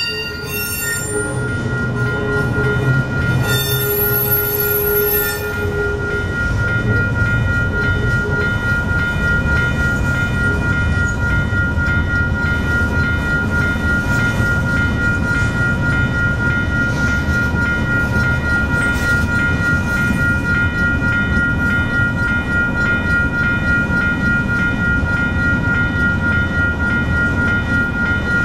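Train rolling through a street grade crossing with a steady low rumble of wheels on rail, while the crossing's warning bell rings without a break as a steady high tone.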